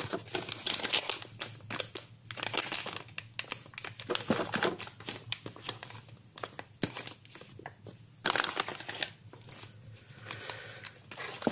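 Small clear plastic zip-lock bags crinkling as they are handled, coming and going irregularly with a few quieter moments.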